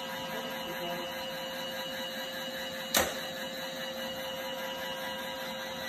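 Roomba robot vacuum running with a steady mechanical hum and a faint held tone. One sharp click about halfway through.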